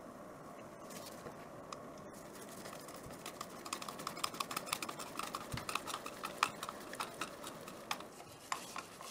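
Screwdriver turning a small screw into a 3D-printed plastic housing. A few light clicks at first, then from about three seconds in a quick, irregular run of small clicks and scrapes as the screwdriver works the screw.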